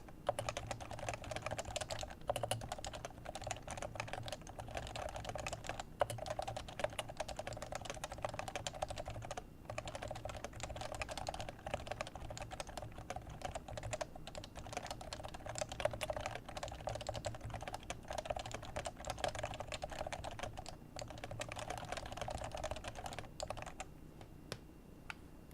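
Leopold FC660c keyboard with Topre 45g electrocapacitive switches being typed on quickly and continuously, a steady patter of keystrokes. It pauses briefly about a third of the way in and stops shortly before the end.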